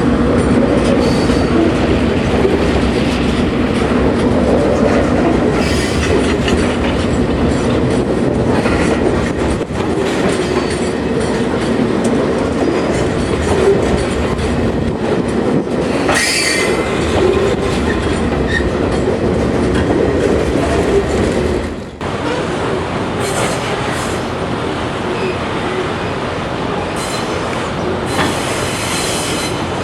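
A train rolling past on the track, its wheels clattering over the rail joints with some high wheel squeal. The sound changes abruptly about two-thirds of the way through.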